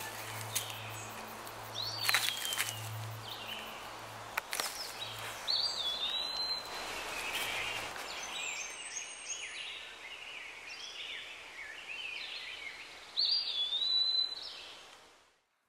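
Woodland ambience with birds calling: one high call, a hooked note that rises then dips and levels off, comes three times among other chirps. A low hum underneath dies away about halfway through, and everything fades out at the end.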